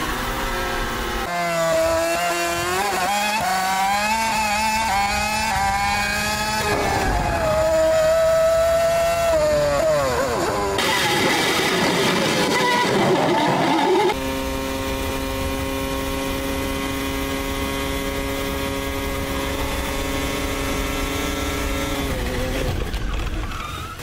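Onboard sound of a Formula 1 car's turbo V6 hybrid power unit, Mercedes-built in this Force India. Its pitch rises and falls with throttle and gear changes through the corners. About 14 seconds in it changes abruptly to one steady, held pitch with anti-stall engaged, then drops away near the end.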